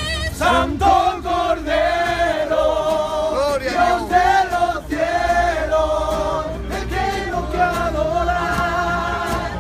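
A small mixed group of voices singing a religious chorus together in unison, with acoustic guitar strummed in a steady rhythm under them.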